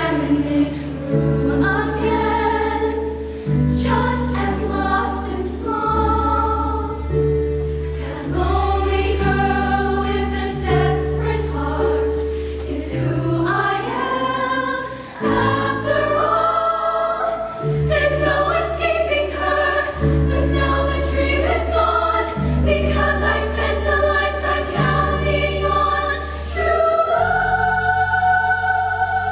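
Women's show choir singing in harmony over instrumental accompaniment with a deep bass line.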